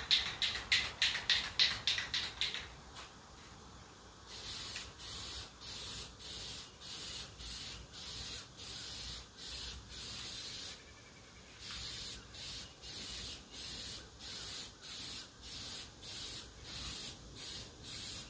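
Spray paint hissing out in short repeated bursts, a little under two a second, with a pause of about a second midway, as missed spots on the canoe hull are touched up. It opens with a couple of seconds of quick rattling.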